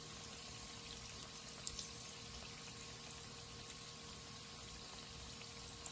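Filo-pastry briouates frying in a pan of oil over a moderate heat: a steady soft sizzle of bubbling oil with a few faint crackles.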